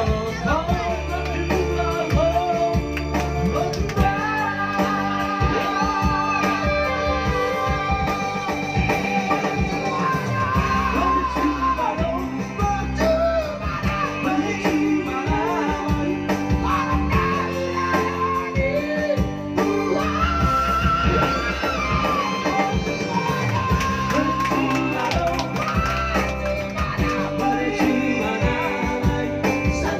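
Music: a Batak pop song in a stretch without lyrics, a wavering lead melody over guitar and full band backing.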